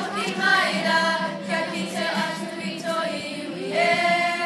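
A primary-school kapa haka group singing a Māori song in unison, with some longer held notes near the end.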